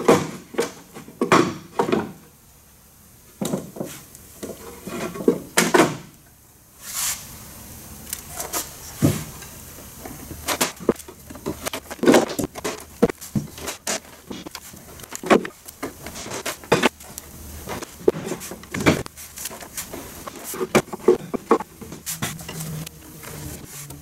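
Wooden beehive frames and foundation sheets being handled and set into a wooden hive box: irregular knocks and clacks of wood on wood, with a brief scrape about seven seconds in and two short pauses.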